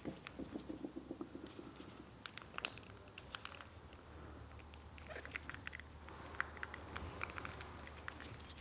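Faint scattered clicks and creaks of a VW Mk2 Golf's plastic rear-demister rocker switch case being worked and pried apart by gloved fingers, with the rub of the gloves on the plastic.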